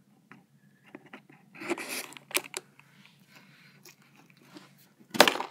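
A blade slitting the tape seal on a cardboard toy box: scattered clicks and short scraping rasps, with a louder tearing rasp about five seconds in.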